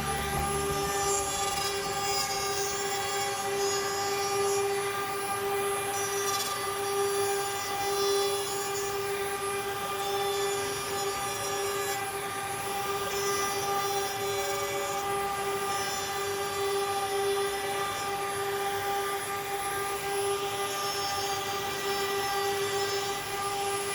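An electric power tool's motor running steadily at constant speed, giving an even whine.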